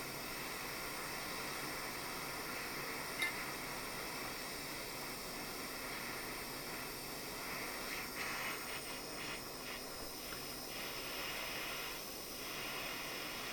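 Gas soldering torch flame hissing steadily while heating a brass ring for soldering. A sharp click sounds about three seconds in, and a few light ticks come around eight to ten seconds in.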